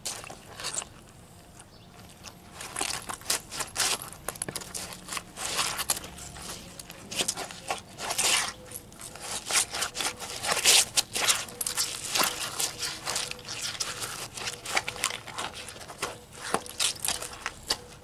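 Sole-less, soaked leather ankle boots scuffing and squelching on wet paving stones as they are trodden about: a dense, irregular run of scrapes and slaps, quieter for the first couple of seconds.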